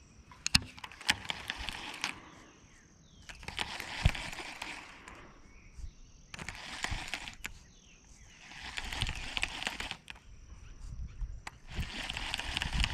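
Baitcasting reel being cranked in short spurts of a second or two, five times with pauses between, a fast whirring tick of the gears as line is wound in. A few sharp clicks come just before the first spurt.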